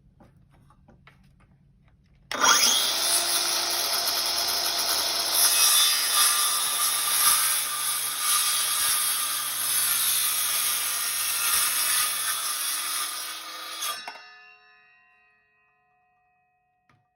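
Denali by SKIL 20V cordless circular saw starting up about two seconds in and cutting through a board of 4/4 curly maple for about twelve seconds, with the blade working in the wood throughout. The trigger is then released and the blade winds down and stops.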